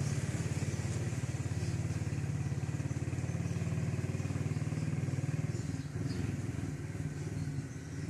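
Small motorcycle engine running steadily at low speed, easing off a little near the end.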